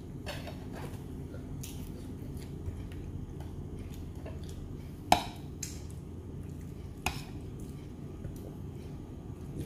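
Steamed mud crab being picked apart by hand at the table: a few short sharp clicks and clinks of crab shell and plates, the loudest about five seconds in and another about two seconds later, over a steady low hum.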